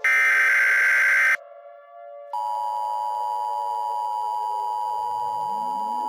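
Emergency Alert System tones: the last of the loud, buzzy digital header bursts, about a second long, then after a short gap a steady attention tone begins about two seconds in. A low drone runs beneath, and rising sliding tones join near the end.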